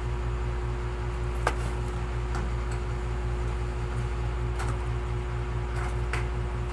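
Steady low machine hum with a pulsing drone underneath, and a handful of faint, scattered clicks and ticks.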